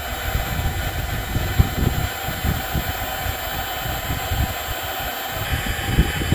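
Ryobi 18-volt cordless heat gun running steadily, its fan blowing hot air to shrink heat-shrink tubing, with wind buffeting the microphone in low gusts.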